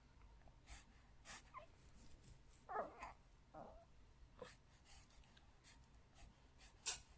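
A sleeping four-month-old baby letting out faint whimpers in his sleep, two short ones about three seconds in, with a few soft breathy sounds around them.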